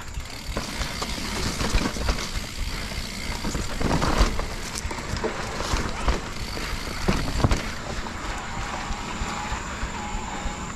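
Mountain bike ridden over a rough trail: the bike and tyres rattle and knock over bumps, with wind rumbling on the microphone. The heaviest knocks come about four seconds in and again past seven seconds.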